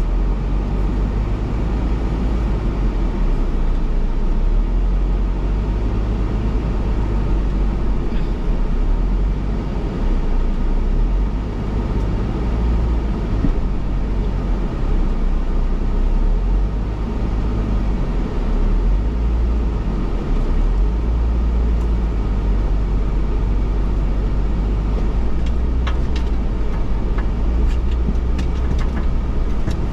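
Ford Bronco driving along an off-road trail: a steady, loud low rumble of engine and tyres with no let-up, and a few light clicks or knocks near the end.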